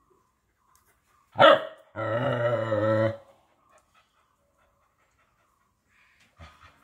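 Agitated dog confronting a cat: one sharp bark about a second and a half in, then a drawn-out growl lasting about a second.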